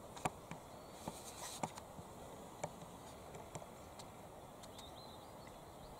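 Quiet outdoor background with a few sharp, scattered clicks and ticks in the first few seconds, and a short faint chirp about five seconds in.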